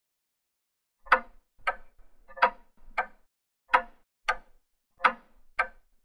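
Twin-bell alarm clock ticking: eight ticks in four tick-tock pairs, starting about a second in.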